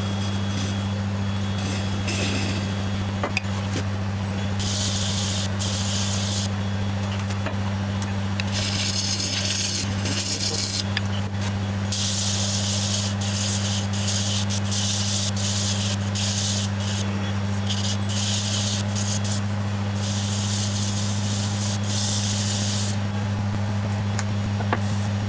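Wood lathe running with a steady low motor hum while an ash burl hollow form is worked on it: a gouge cut first, then hand-sanding with mesh abrasive. Sanding and cutting make hissing passes a second or two long, starting and stopping repeatedly.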